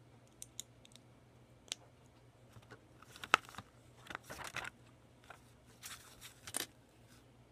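Loose Lego pieces clicking as they are handled, the sharpest click just past three seconds in, and the paper instruction booklet rustling as its pages are turned, around four and again around six seconds in.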